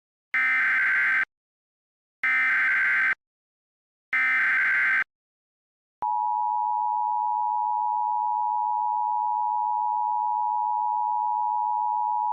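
Emergency Alert System tones: three short bursts of buzzy digital data screech (the SAME header), about a second each and a second apart, then about six seconds in the two-tone EAS attention signal begins, a steady held tone.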